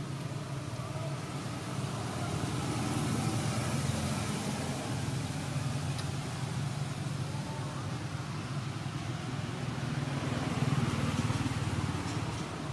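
Steady low background rumble, of the kind heard from distant road traffic, swelling a few seconds in and again near the end.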